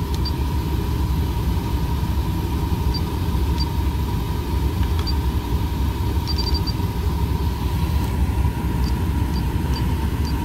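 Volkswagen up!'s three-cylinder engine idling, a steady low rumble heard inside the cabin. Faint short beeps from the car stereo's buttons come as they are pressed, with a quick run of several about six seconds in.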